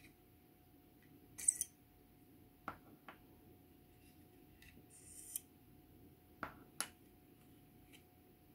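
Hands working on a plastic scale model kit: two short, high scraping sounds and two pairs of light clicks from the plastic parts and hobby tools, over a faint steady hum.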